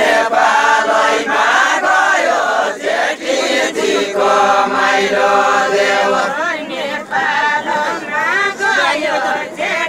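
Men's voices singing a Deuda folk song together, in the drawn-out chanting style of this Far-Western Nepali circle dance, with no instruments.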